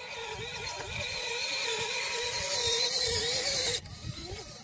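A 1:12 scale RC crawler's electric motor and gearbox whining as it drives, the pitch wavering with the throttle and growing louder, then cutting off suddenly near the end.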